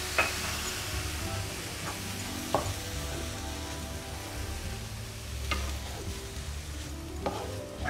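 Shredded chicken and onion sizzling in a non-stick frying pan with milk just added, stirred and scraped with a plastic spoon that knocks against the pan three times.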